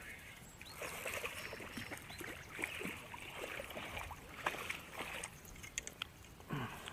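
Water splashing and sloshing as a hooked brown bullhead is reeled in through the shallows and dragged onto a muddy bank, with several sharp clicks and knocks along the way.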